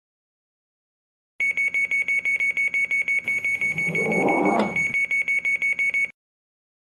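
Train door-closing warning: a rapid, steady high-pitched beeping of about eight beeps a second, with the doors sliding shut partway through. It starts about a second and a half in and cuts off suddenly.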